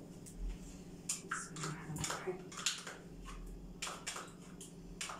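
Scattered light clicks and scrapes of plastic yogurt tubs being handled and emptied into a bowl, a dozen or so irregular short ticks.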